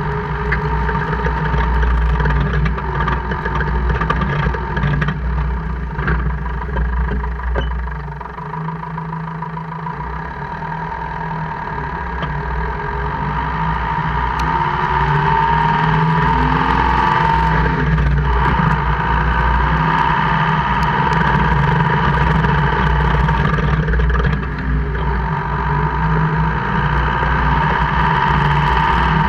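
2002 Jeep Cherokee KJ running, its engine and drivetrain noise steady, easing off about eight seconds in, then building again and holding. A few sharp clicks come through in the first several seconds.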